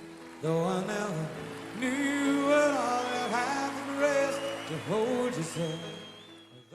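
A recorded song: a singer's voice over instrumental backing, with held sung notes, fading away near the end.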